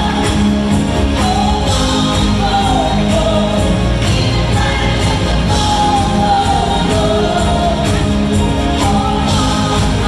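A pop song performed live: a woman and a man singing over a full band with drums, keyboards, a string section and backing choir.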